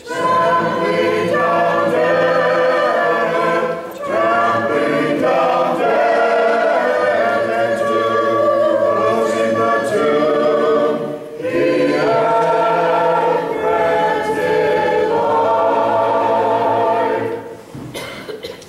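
Church choir singing Orthodox liturgical chant unaccompanied, in long sustained phrases with brief breaks for breath, fading out near the end.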